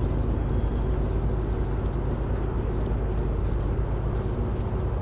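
Diesel locomotive idling with a steady low rumble, overlaid by scattered faint high-pitched squeaks and clicks.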